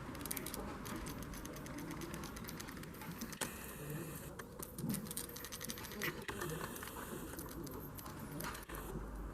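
A gas lighter being refilled from a butane canister: irregular small clicks and taps as the canister nozzle and lighter are handled, with a faint hiss of gas in the middle of the stretch.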